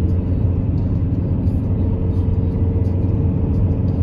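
Steady low rumble of a car driving on a paved road, heard from inside the cabin: engine and tyre noise.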